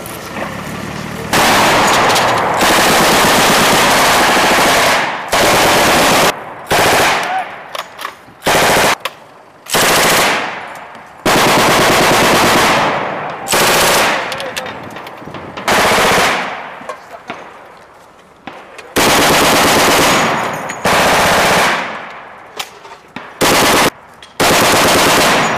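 Belt-fed machine gun firing automatic bursts, about a dozen of them, some long and some short, with the sound of each burst trailing off in the gaps between.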